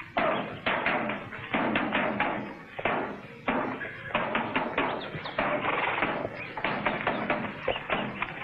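A field snare drum beating a march as a column moves off, mixed with horses' hooves and footsteps: a steady run of sharp taps and knocks.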